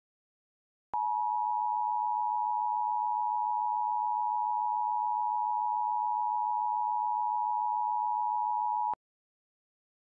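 Emergency Alert System attention signal: two steady tones sounding together as one harsh alarm, starting sharply about a second in, held for about eight seconds, then cutting off. It announces that an emergency alert message is about to follow.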